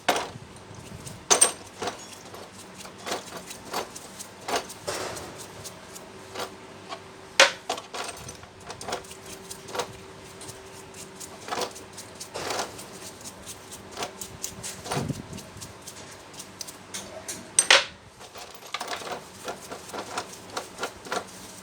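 Metal parts and tools clinking and knocking irregularly during hands-on jackhammer repair, with a few sharper metal impacts scattered through.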